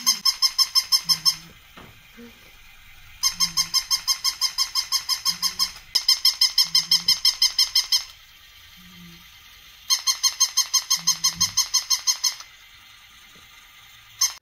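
Battery-operated toy puppy barking through its small speaker: rapid, evenly spaced electronic yips, about seven a second, in bursts of two to three seconds with short pauses between.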